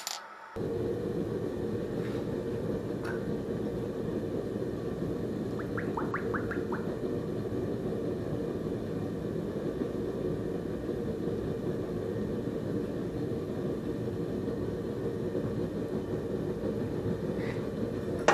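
Gas forge burner running with a steady, even roar. A few faint light ticks sound about six seconds in.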